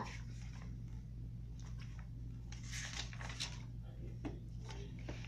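Paper pages of a hardcover picture book rustling as they are handled and turned, over a steady low hum.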